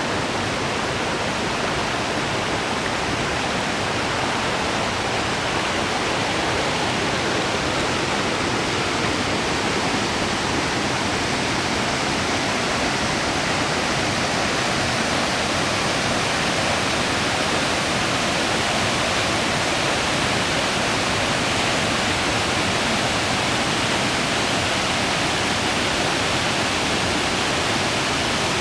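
Small waterfall pouring into a stream, a loud steady rush of falling water.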